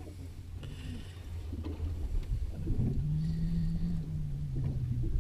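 Low steady rumble aboard a small fishing boat at sea, with a held low tone for about two seconds in the second half.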